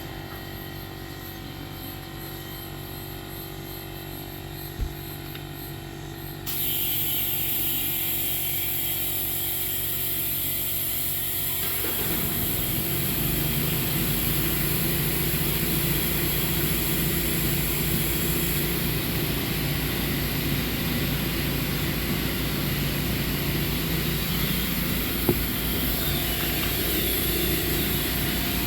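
An engine running steadily, growing louder in two sudden steps about six and twelve seconds in. There is a short sharp click about five seconds in and another near the end.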